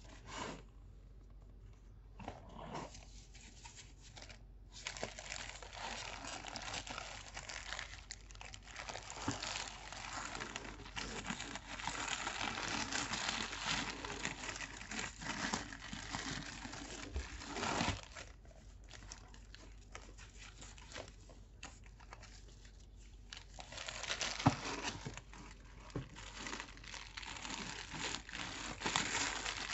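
Clear plastic wrapping and paper stuffing inside a new handbag crinkling as hands handle them: a long stretch of rustling, a quieter spell past the middle, then more crinkling near the end.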